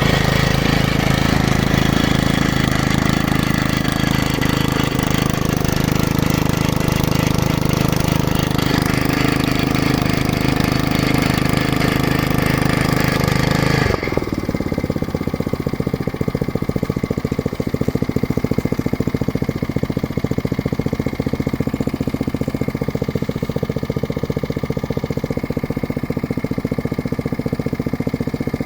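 Geological exploration drilling rig running loud. About halfway through the higher machine noise cuts out abruptly with a falling tone, and an engine keeps running on its own at a lower pitch with a rapid pulsing.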